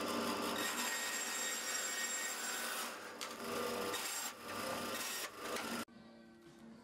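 Bandsaw running and cutting a wooden dowel to length, a steady machine sound with a few brief dips; it cuts off abruptly near the end, leaving only faint sound.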